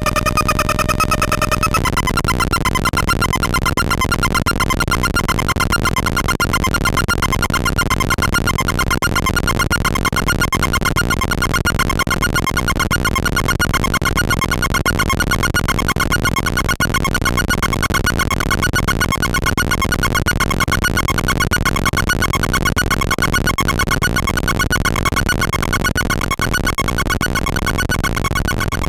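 Homemade NAND-gate square-wave noise synthesizer droning: a harsh pitched tone over dense low grit. Its pitch slides up and settles in the first two seconds, then holds steady with a fast flutter.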